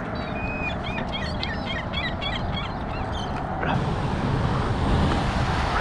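Birds give a quick run of short, high chirps for about the first three seconds over a steady low rumble. A wash of broad noise, from a motorboat passing near the kayak, comes in about three and a half seconds in.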